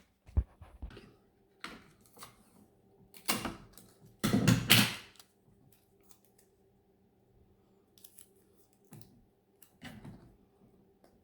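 Hand-handling noises: scattered small clicks and knocks, with a louder rasping rustle lasting just under a second about four seconds in.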